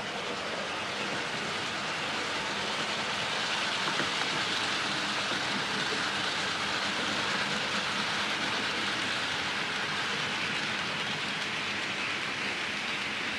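HO-scale model train running on the layout's track: a steady whirring rush of wheels and small motor that swells a little after the first couple of seconds and eases slightly near the end.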